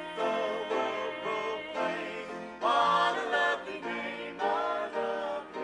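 Gospel song with singing voices and acoustic guitar accompaniment.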